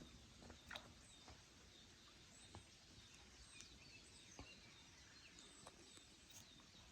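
Near silence: faint outdoor background with a few scattered small clicks and faint high chirps.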